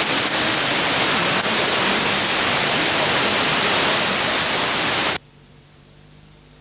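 Loud, steady hiss of static on a television broadcast's sound as its microwave studio-to-transmitter link drops out, the signal faded by heavy rain on the path. About five seconds in the hiss cuts off suddenly, leaving a faint low hum.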